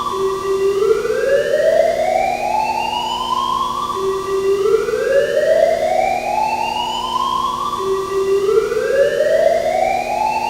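Arena fire alarm sounding its evacuation signal: a pitched tone that sweeps steadily upward over about two seconds, holds, then drops back low and starts again. There are three rising sweeps, about four seconds apart.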